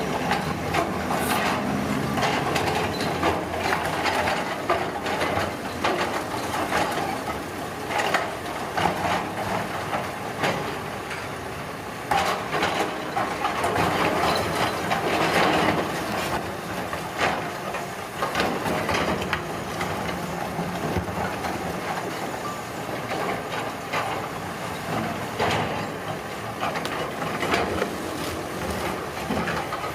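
Heavy road-construction machinery working: a steady mechanical din with frequent knocks and crunching.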